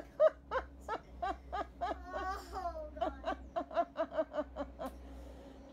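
Girls laughing in short rhythmic bursts, about three a second, with a high falling squeal about two seconds in; the laughter dies away near the end.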